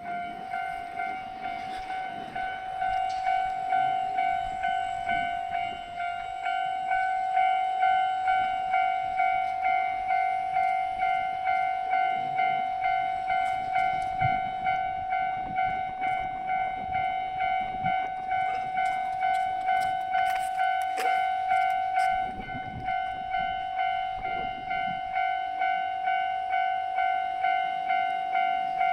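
Japanese level crossing's electronic warning bell ringing steadily, one pitched tone repeating about one and a half times a second. Some low rumbling noise sits underneath.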